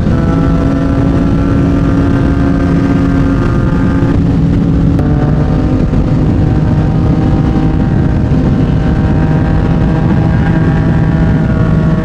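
Yamaha MT-09's inline-three engine through a Yoshimura R55 slip-on exhaust, running at a steady pitch while riding. The engine note changes about four to five seconds in, then holds steady again.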